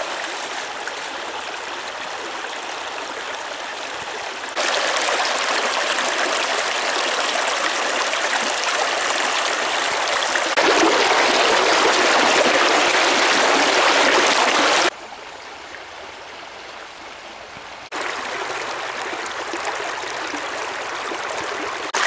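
Shallow stream water rushing and churning over stones. The level jumps abruptly several times: it gets louder about four and a half seconds in and again about eleven seconds in, drops sharply around fifteen seconds, and rises again near eighteen.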